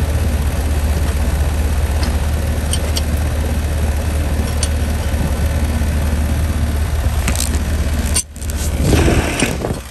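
ICP 3-ton R22 heat pump condensing unit running, its compressor and condenser fan giving a steady low hum, freshly restarted after a new run capacitor was wired in. About eight seconds in the sound briefly drops, then handling noise rises close to the microphone near the end.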